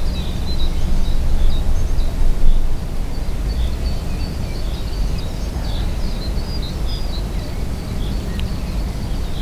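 Wind buffeting the microphone in a steady low rumble, gusting harder about two and a half seconds in, with small birds twittering in short high chirps.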